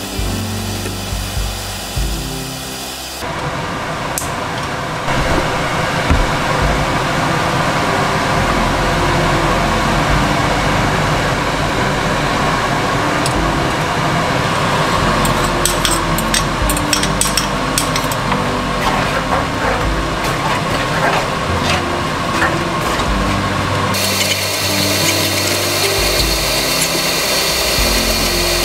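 Pasta sizzling in a frying pan over a gas flame, with a run of light clicks and scrapes of chopsticks tossing it about halfway through. Background music plays in the first few seconds and again near the end.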